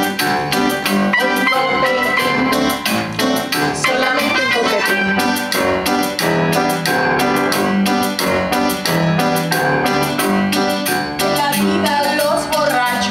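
Grand piano played live, a busy, unbroken run of chords and notes. A woman's singing voice comes in near the end.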